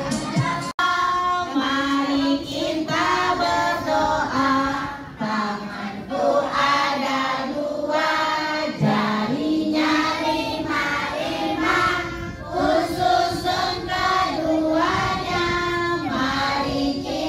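A group of children's and women's voices singing a children's song together, with a brief break about a second in.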